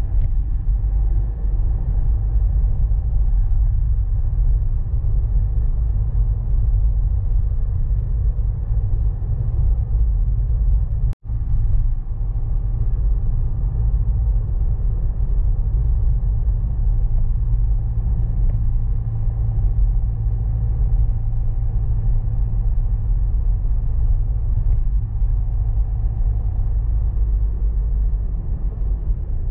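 Steady low rumble of a car driving on a paved road, heard from inside the cabin. The sound cuts out for a split second about eleven seconds in.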